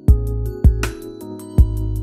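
Electronic background music: heavy kick drum hits with a deep sustained bass under held synth chords, and a snare-like hit just under a second in.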